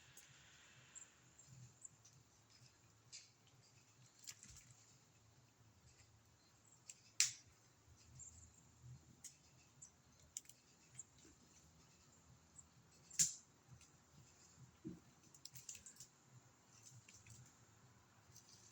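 Near silence broken by scattered faint clicks and rustles, with two sharper clicks about seven and thirteen seconds apart from the start; no chainsaw running.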